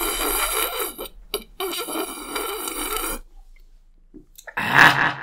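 Exaggerated close-miked mouth sounds from a mukbang eating and drinking clip. A long noise stops sharply about three seconds in, and after a short near-quiet pause with small clicks a loud burst comes near the end.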